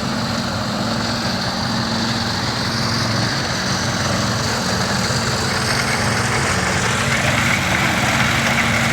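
Large diesel engine of heavy equipment running steadily with a low, even hum, a higher mechanical whine building slightly in the last few seconds.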